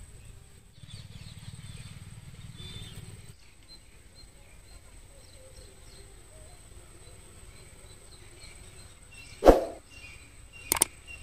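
Faint outdoor field ambience: a steady high insect drone with scattered small bird chirps, and a low hum for the first few seconds. About nine and a half seconds in comes a sudden loud thump, then two sharp clicks near the end, the sound effects of an animated subscribe button.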